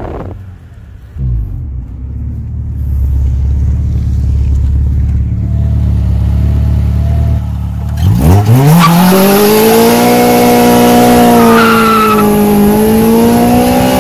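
Honda H23A inline-four engine, heard from inside the car's cabin. It runs at low revs, then about eight seconds in revs up sharply as the car is pulled hard from a stop, and stays at high revs to the end.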